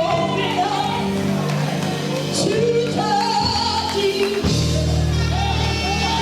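Gospel worship song with live band and singing voices, the held notes of a slow praise chorus.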